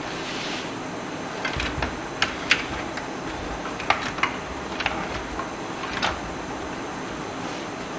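Irregular sharp clicks and taps of power-supply cables and their plastic connectors knocking against the PC case as they are handled and routed, about ten of them over a few seconds, over a steady hiss.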